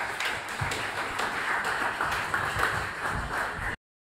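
Audience applauding, a dense patter of hand claps, which cuts off suddenly near the end.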